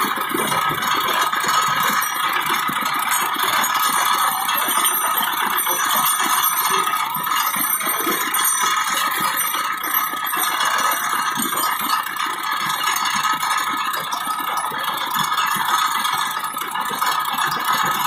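Sugarcane juice roller machine running steadily.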